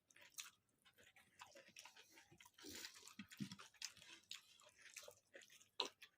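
Faint chewing: a person eating, with irregular small wet mouth clicks and soft crunches.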